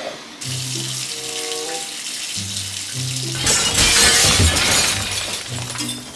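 Background music with a glass-smashing crash over it, a long spray of shattering noise loudest about four seconds in: the glass globe of a gumball machine breaking.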